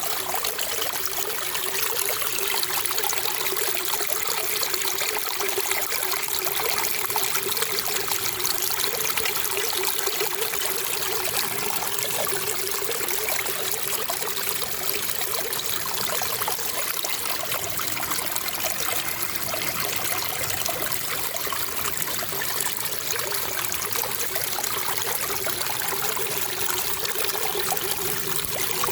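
Running water trickling steadily, an even unbroken splashing with no pauses.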